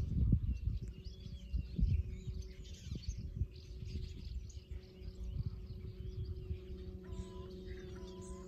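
Small birds chirping and calling over uneven low gusts of wind on the microphone; the wind is strongest in the first two seconds. Near the end, a few short pitched notes repeat.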